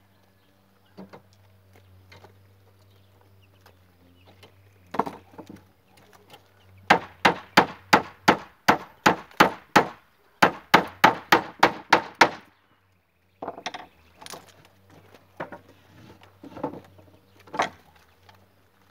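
Hammer driving nails into wood: a steady run of about a dozen blows, roughly three a second, a brief pause, then a quicker run of about eight blows. Scattered lighter knocks before and after.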